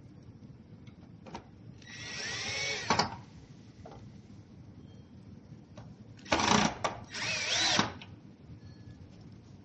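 Power drill running in three short bursts, its motor pitch rising and falling within each, as during work on a treadmill's fasteners.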